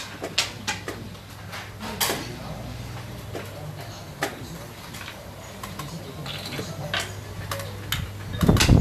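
Sharp separate clicks of xiangqi pieces being set down on a wooden board and of the digital game clock being pressed, over a steady low hum. A louder burst of knocking comes near the end.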